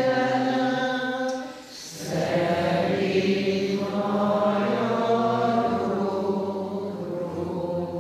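Slow, chant-like singing in long held notes, with a short pause about one and a half seconds in before the next phrase begins.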